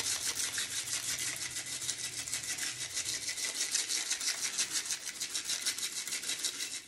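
Sprinkles rattling in a small plastic shaker container, shaken rapidly and evenly several times a second as they are scattered over the coated popcorn.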